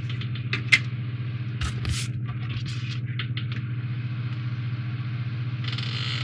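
Cardboard diorama sheets and plastic model-kit parts being handled, with short rustles and clicks, one sharp click just under a second in, and a brief scrape near the end, over a steady low hum.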